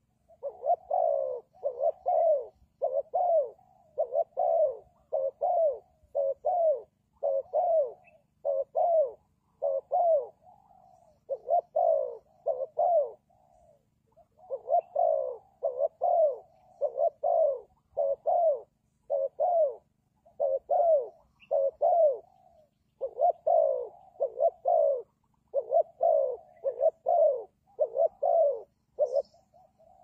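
Spotted dove cooing: a long series of short, falling coo notes, about two a second, in phrases broken by brief pauses.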